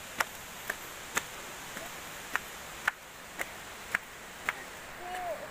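Footsteps climbing stone steps: sharp, regular slaps about two a second over a steady background hiss.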